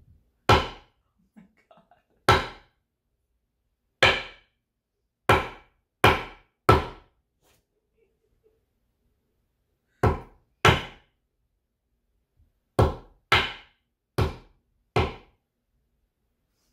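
Butcher knife chopping down through hair onto a bamboo cutting board: twelve sharp knocks in uneven groups, some in quick pairs, with quiet gaps between.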